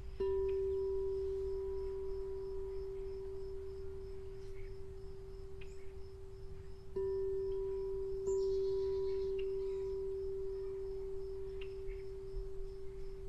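A resonant metal instrument ringing with one low, steady tone, struck three times: at the start, about seven seconds in and again a second later, each ring fading slowly.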